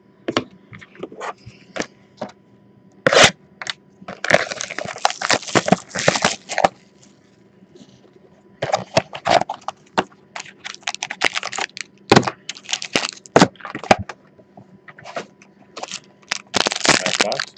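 Cardboard trading-card boxes and foil pack wrappers handled on a table. There is a burst of crinkling about four seconds in and again near the end, with scattered clicks and taps in between.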